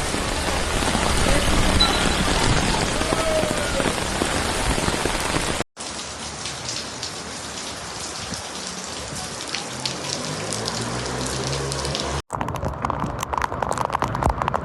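Heavy rain pouring, in three recordings joined by abrupt cuts about six and twelve seconds in. The middle one has a low steady hum under the rain, and the last has many sharp close drips and splashes.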